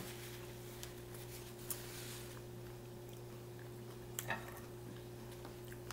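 Quiet chewing of a hard-shell taco, with a few faint crunches and mouth clicks, about four seconds in. A steady low hum underneath.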